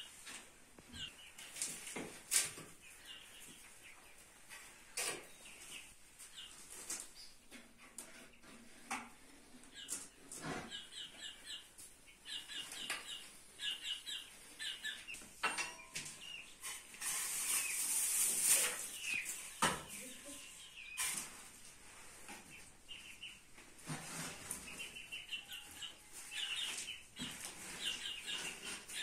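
Ash being scooped out of a clay tandoor with a bowl and tipped into a metal basin: scattered scrapes and knocks, and a longer rush of noise about two-thirds of the way in. Birds chirp in short bursts throughout.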